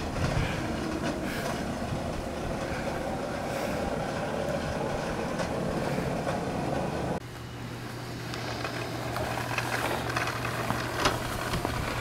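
Child's plastic toy push mower rolling and rattling over grass. About seven seconds in the sound drops off suddenly and changes, with a steady low hum under the rattle after that.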